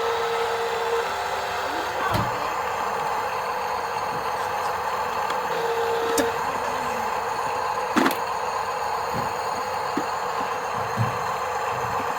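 Small electric motors and plastic gearboxes of radio-controlled construction models running steadily, with a brief steady whine twice and a few sharp clicks and knocks, the loudest about eight seconds in.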